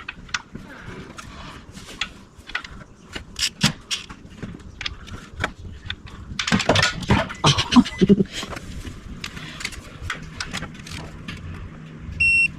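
Clanks, clicks and knocks of hand tools and metal parts being handled, most frequent about two-thirds of the way through, with a short high beep near the end.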